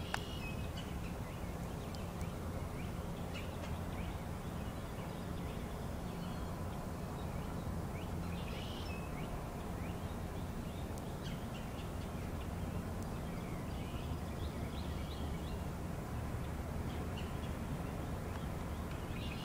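Scattered faint bird chirps over a steady low rumble of background noise.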